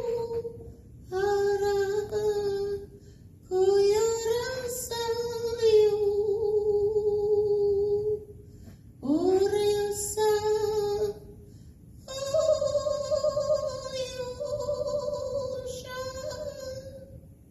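A woman's voice singing long wordless held notes, unaccompanied, in five phrases with short pauses between them, the last sliding slightly down as it fades.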